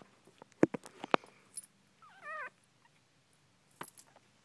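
Newborn miniature dachshund puppy giving one short, wavering whimper about two seconds in, with several sharp clicks before and after it.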